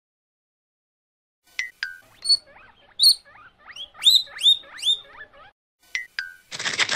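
Guinea pig wheeking: a run of short rising squeals, about three a second, lasting some three seconds. It is the begging-for-food call of a hungry guinea pig. A pair of quick falling blips comes before and after the squeals, and a short burst of noise comes near the end.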